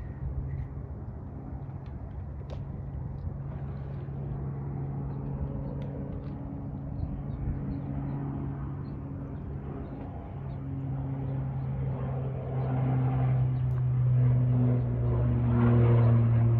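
A motor running with a steady low hum, growing louder over the last few seconds.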